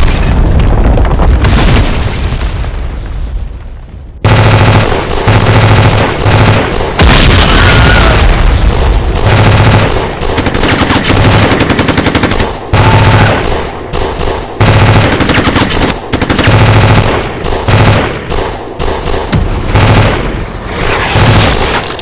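Loud, rapid machine-gun fire over a driving beat of low, regular thumps. A first burst dies away over about four seconds, then the firing starts again suddenly.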